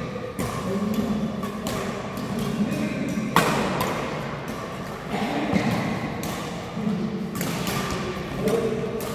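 Badminton rally: rackets hitting the shuttlecock several times, sharp cracks with the loudest about a third of the way in, ringing in a large hall.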